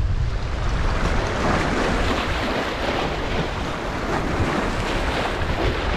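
Small ocean waves washing and foaming over the rocks at the water's edge, swelling a little after the first second or so, with wind buffeting the microphone as a low rumble.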